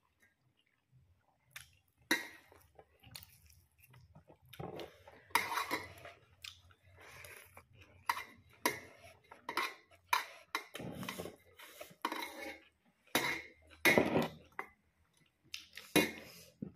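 Close-up eating sounds from a person eating rice and meat curry by hand: chewing and mouth noises, with irregular clicks and taps against a ceramic plate.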